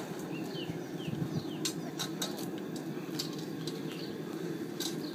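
Sharp clicks and knocks of hard crayfish shells being handled and dropped into a pot, several in quick succession over the middle and end, over a steady low rumble. A few short bird chirps in the first second and a half.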